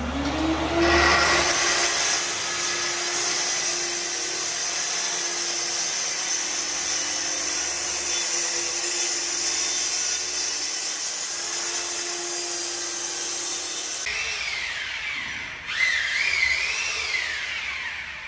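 Festool TS 55 plunge track saw spinning up and then cutting steadily through a plywood subfloor sheet along its guide rail, with a dust extractor hissing through the hose. About 14 s in the saw stops and wavering, sweeping tones fill the last few seconds.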